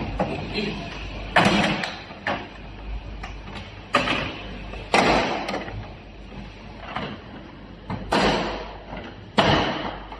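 Plastic casing parts being pried and handled during disassembly: five or six sharp clicks, each followed by a short scrape.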